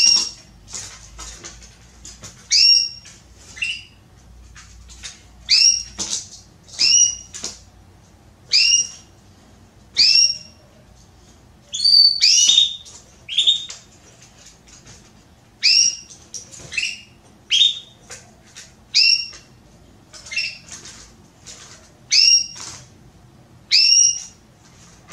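Female domestic canary (Belgian canary) calling over and over to solicit mating. Each call is a short, upward-sweeping chirp, coming every second or two, with faint ticks in between.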